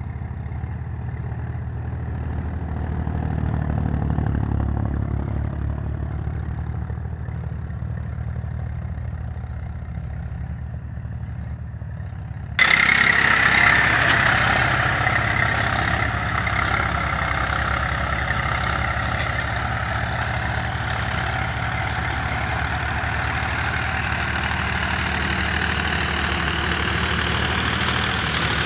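Tractor diesel engines running steadily under load, pulling cultivators through dry soil: a low engine sound at first. Just before halfway it jumps abruptly louder and fuller as the Eicher 380's engine is heard close by, working the cultivator.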